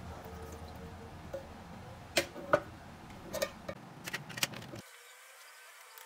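Sharp metallic clinks as a motorcycle carburetor body and its parts are handled and knocked against a stainless steel tray. There are about seven clinks over two or three seconds, the loudest two close together.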